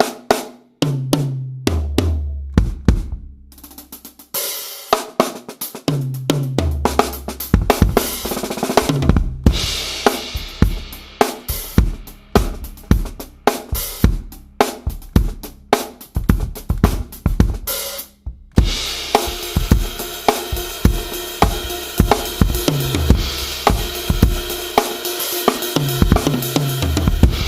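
Tama drum kit tuned low and dry, played with snare, bass drum, hi-hat and Meinl cymbals in busy grooves and fills. Several fills step down the toms, and the cymbal wash grows heavier in the second half.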